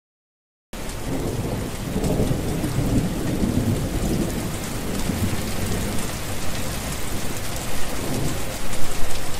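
Heavy rain pouring onto a hard, wet surface, starting abruptly about a second in, with a low rumble underneath during the first few seconds and a few louder surges near the end.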